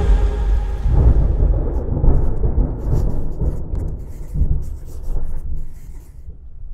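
Thunder rolling with a patter of rain, a deep rumble that dies away gradually over several seconds.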